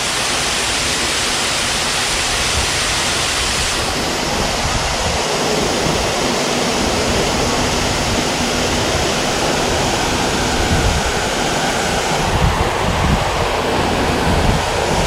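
Steady rush of a waterfall pouring into a small creek, with no break.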